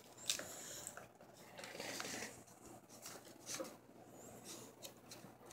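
Faint handling of hardcover sketchbooks as they are picked up and shifted: scattered soft rustles and light knocks.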